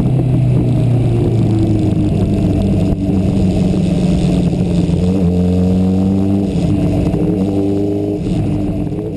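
Sport motorcycle engine running under the rider while riding in traffic. Its pitch sinks early on, then climbs steadily from about five seconds in as the bike speeds up.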